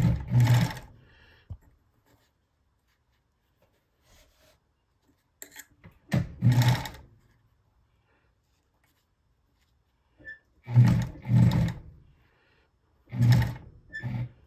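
Bonis Never Stop fur sewing machine (A model) running in short bursts of about a second, four times, stitching a seam in beaver fur and leather, with near silence between the runs.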